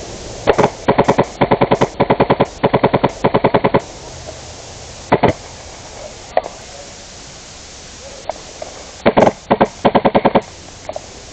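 HPA-powered airsoft gun firing rapid full-auto bursts at roughly fifteen shots a second. A run of bursts fills the first few seconds, a couple of single shots follow, and another burst comes near the end.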